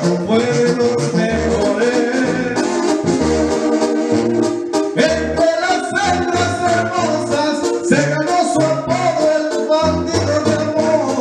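Karaoke performance of a Latin song: a backing track with brass and a bass line, with a man singing along into a microphone.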